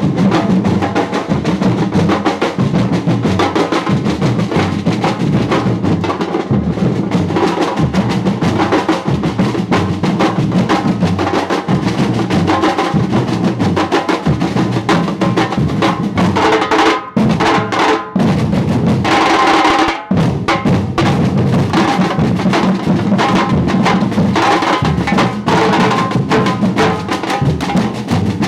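Percussion music: drumming in a fast, dense, unbroken rhythm, with a few brief drops in level about seventeen to twenty seconds in.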